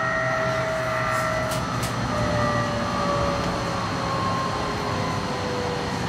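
Tram running along city tracks, heard from inside the car: a steady rumble with a whine that slowly falls in pitch.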